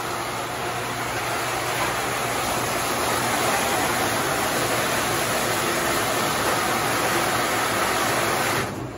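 Pool pump and filter equipment running: a loud, steady rushing noise with a faint low hum, which grows louder on entering the equipment room and drops away sharply near the end.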